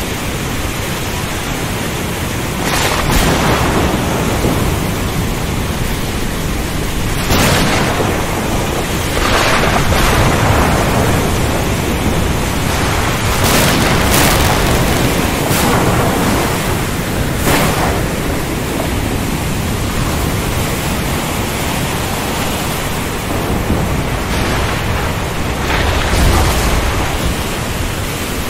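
Thunderstorm over the sea: a steady hiss of heavy rain and surf, broken again and again by sharp cracks of thunder, with a deeper thunder rumble near the end.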